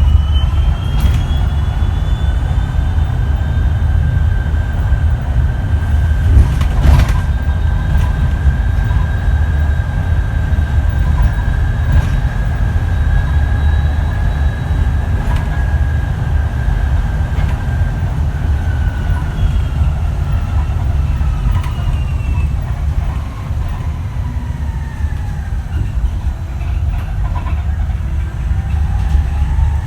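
Switch Metrodecker EV electric bus's ZF AxTrax AVE electric drive whining over a heavy low rumble. The whine rises in pitch as the bus gathers speed, holds steady while cruising, falls as it slows about two-thirds of the way through, and starts rising again near the end. A single knock about seven seconds in.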